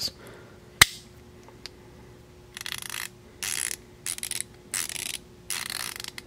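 Duralast 90-tooth encapsulated ratchet: a single sharp click just under a second in, then five short bursts of fine, rapid ratchet clicking as the socket is turned against the mechanism.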